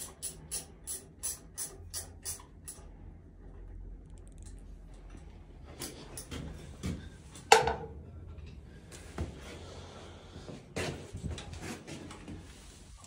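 Metal clicking and clanking from hand work on an elevator hoist machine's brake: a regular run of clicks, about four a second, for the first couple of seconds, then scattered metallic knocks, one much louder about seven and a half seconds in.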